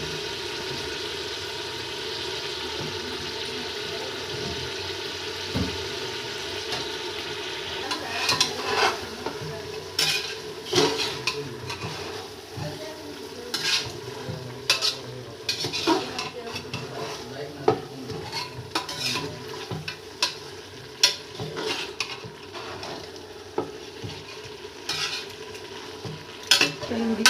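Chicken sizzling as it fries in oil with onion-tomato masala in the pressure cooker pot. From about eight seconds in, a spoon scrapes and knocks against the pot in irregular strokes as the mixture is stirred.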